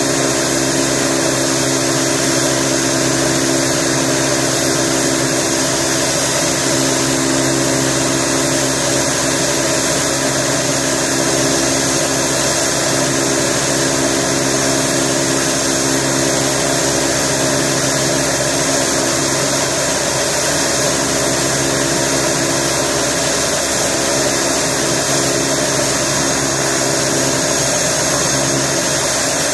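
Pilatus PC-12 NG's Pratt & Whitney Canada PT6A-67P turboprop idling on the ground with its propeller turning: a steady high whine over a steady drone, holding the same pitch throughout.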